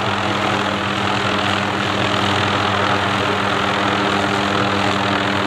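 Hughes 500D helicopter running steadily: an even drone of rotor and turbine with a constant hum underneath.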